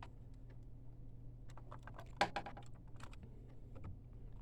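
Small plastic clicks and taps as an ink damper is pressed into its holder on the printhead, with a cluster of clicks about two seconds in, over a faint steady low hum. The damper does not snap home with the expected click: it has not seated properly.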